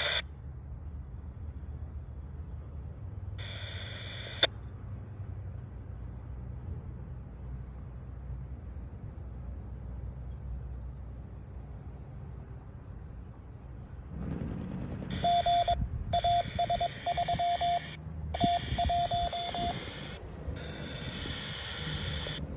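Radio scanner over a low background rumble: a short burst of squelch noise about three and a half seconds in, ending in a click, then from about two-thirds of the way through a transmission of stop-start tones with a repeated on-off beep.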